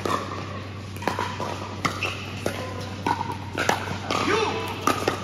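Pickleball rally: repeated sharp pops of paddles striking the hollow plastic ball, several hits in a few seconds.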